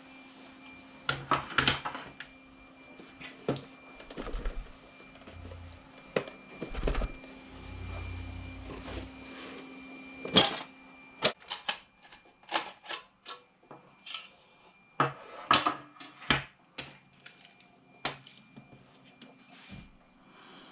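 Irregular sharp clicks and knocks of small plastic and metal parts being handled as an Xbox 360 disc drive is taken apart, with a few duller thuds. A faint steady hum runs underneath.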